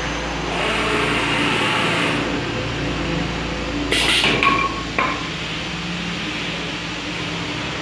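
Automatic CNC wood-turning lathe running, its cutter turning a wooden spindle blank with a hiss over the steady machine hum. About four seconds in come a sharp metallic clank with a short ringing tone, and a second knock a second later, as the finished piece is released and the next blank is loaded from the hopper.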